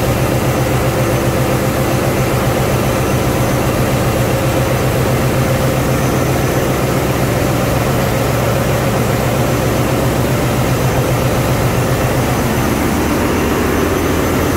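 Wärtsilä 6L20 six-cylinder in-line medium-speed marine diesel, a ship's auxiliary generator engine, running steadily after start-up. It makes a loud, even drone with a fast regular beat.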